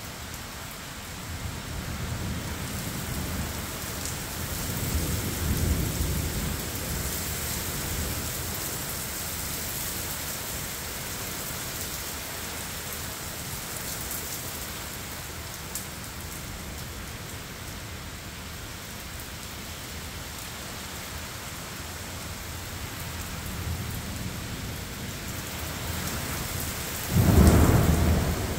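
Torrential rain pouring steadily in a severe thunderstorm. A long low roll of thunder comes in the first several seconds, and a sudden loud clap of close thunder near the end is the loudest sound.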